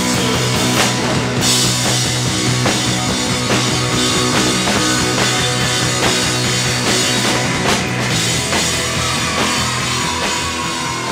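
Live rock band playing loud, punk-style, with drum kit and amplified instruments: a held low chord under regular drum hits, the chord changing in the second half and a single note sliding down near the end.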